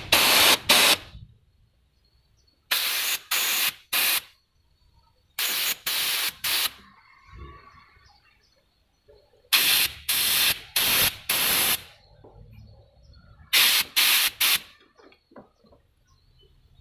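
A compressed-air blow gun fires short hissing blasts of air through vacuum modulator hoses to clear them out. The blasts come in quick groups of three to five, one group every few seconds.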